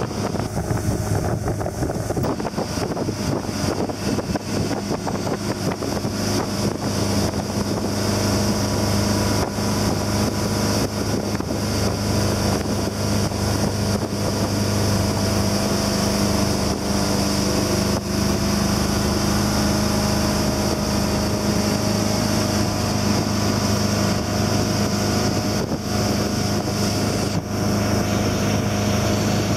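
Tow boat's engine running steadily at speed, a constant low hum, with water rushing past the hull and wind buffeting the microphone.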